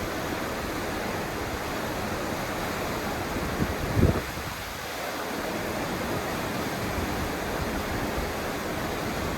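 Steady rushing noise of wind and sea, with two low buffets of wind on the microphone about three and a half and four seconds in, the second the loudest.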